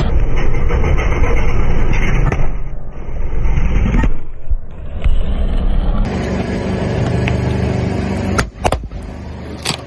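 Car engine running close by with tyre noise as the car drives. Near the end come a few sharp cracks.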